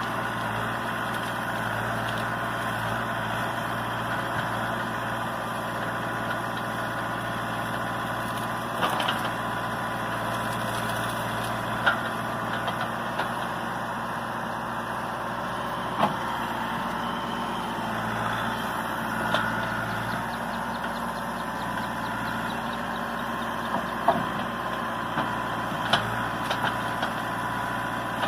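Caterpillar 416E backhoe loader's diesel engine running steadily while the backhoe arm works in brush, with a few sharp cracks of wood breaking.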